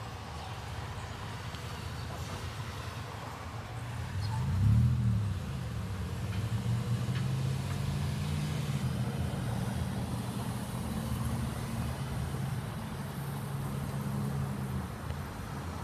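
A motor vehicle engine running nearby. Its pitch rises and falls about five seconds in, its loudest moment, and it then runs steadily for about ten seconds before fading near the end.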